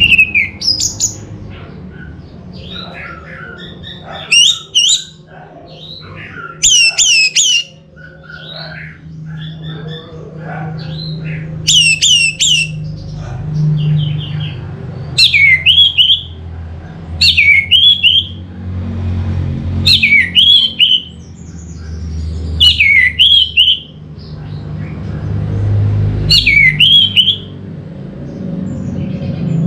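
Orange-headed thrush singing loud, short phrases of sharp whistled notes that sweep downward, repeated every two to three seconds, with quieter twittering between them in the first third. A low rumble runs underneath.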